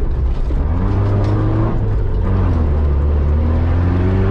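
Mitsubishi Pajero's engine running under load, heard from inside the cabin over a deep steady rumble. The revs sag about a second in, then climb steadily through the last two seconds.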